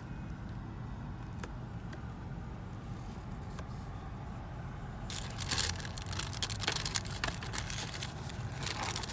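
Low steady rumble, like a car's cabin, then about halfway through a dense crackling rustle of packaging being handled.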